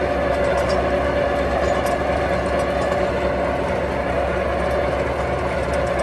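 Massey Ferguson 7720 S tractor's six-cylinder diesel running steadily while it pulls a vertical-shaft rotary power harrow through the soil.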